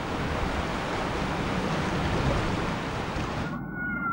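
Open-sea waves and wind on the microphone, a steady rushing noise that cuts off suddenly about three and a half seconds in. A faint steady high tone follows.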